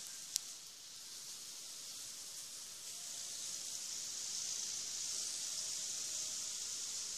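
A steady high hiss that slowly grows louder, with a single sharp click about a third of a second in. There is no thunder rumble.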